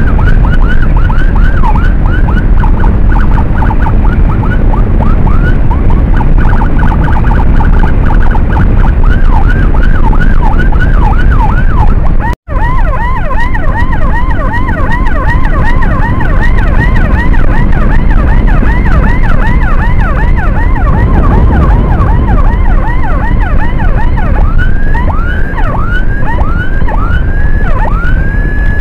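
Electronic emergency siren on a fast yelp, about four rising sweeps a second, over heavy wind and road rumble from a moving motorcycle. The sound cuts out for an instant about halfway through; near the end the sweeps slow and the siren holds one long steady note.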